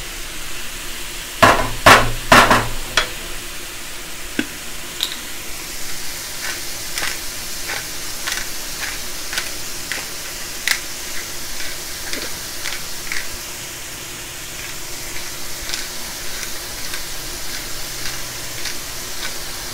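Food sizzling in a hot wok, with a few loud knocks about two seconds in, then a long run of light clicks, one or two a second, from a black pepper grinder being twisted over the pan.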